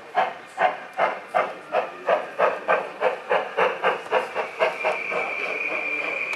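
Model steam locomotive's sound decoder chuffing as it pulls away, the puffs quickening from about two to about four a second. Near the end they merge into a steady steam hiss with a faint high tone.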